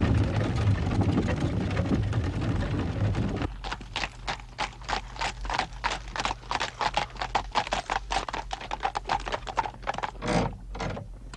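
Horse-drawn carriage on the move. The first few seconds are a dense rumble of the carriage heard from inside the cab. Then comes a quick, regular clip-clop of hooves on a hard road, with one heavier knock near the end.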